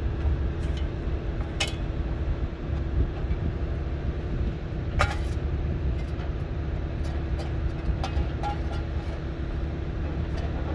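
Wind rumbling on the microphone over surf at a rocky shore, with a few sharp clicks or knocks, the clearest about a second and a half in and again about five seconds in.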